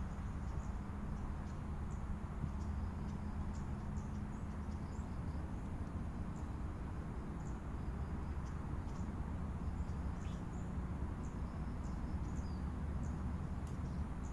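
Outdoor ambience: a steady low rumble with many short, high chirps scattered irregularly through it.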